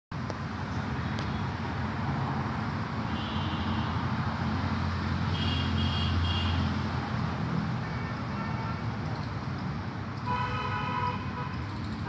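Steady rumble of road traffic with vehicle horns tooting: short high beeps about three seconds in and again around six seconds, and a longer horn near the end.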